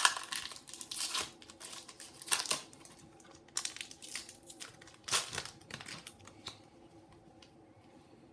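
Pokémon booster pack's foil wrapper crinkling and tearing as it is opened by hand, in a run of uneven rustling bursts that stop about six and a half seconds in.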